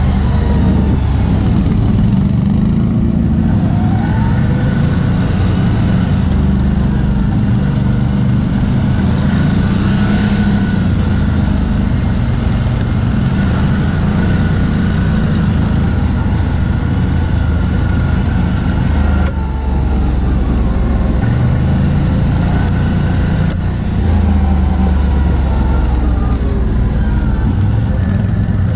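CF Moto X10 ATV's V-twin engine running while riding, its revs rising and falling in steps with the throttle. There are two short dips in loudness about two-thirds of the way in.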